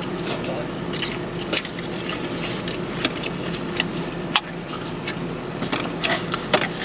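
Plastic takeout containers and packaging being handled: a string of short clicks, taps and rustles as a lid is snapped on and boxes are moved, over a steady low hum.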